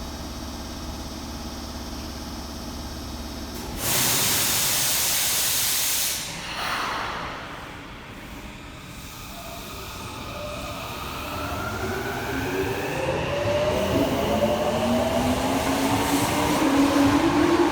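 Tokyo Metro 07 series subway train starting off from a station. A steady hum runs for about four seconds, then a hiss of air starts and stops sharply and lasts about two seconds. From about eleven seconds the inverter-driven traction motors whine in several tones that rise together as the train picks up speed.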